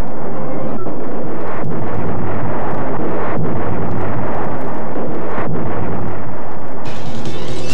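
Dynamite blasts: a loud, continuous rumble of explosions with rock debris, broken by a few brief gaps.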